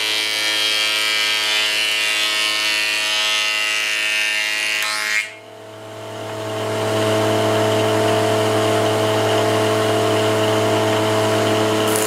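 Combination woodworking machine's jointer-planer running with a steady motor hum while a wooden strip is fed across the cutter, a loud rushing cutting noise. The cutting stops suddenly about five seconds in and the machine runs on unloaded.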